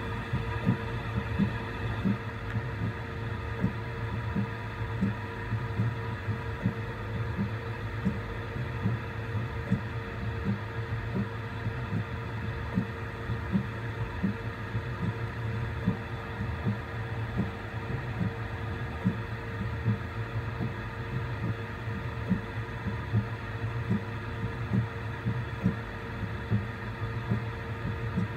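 Voron 3D printer running a print: a steady hum of its fans and stepper motors, with soft regular thumps about twice a second from the print head's short back-and-forth moves on the tiny part.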